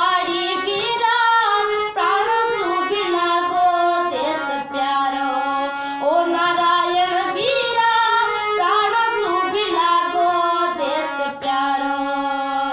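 A girl singing solo in full voice, a slow melody with gliding, long-held notes and short pauses for breath.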